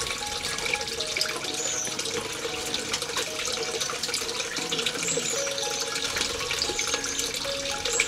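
Steady splashing of running water, with a few high, thin bird chirps over it.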